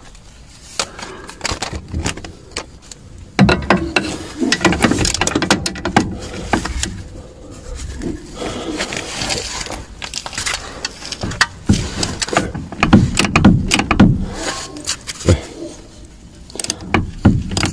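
Metal wrench clicking and knocking on the 18 mm nut of a front stabilizer link as the nut is worked loose, in irregular bursts of sharp taps and rattles; the nut spins with the link's ball-joint stud instead of coming undone.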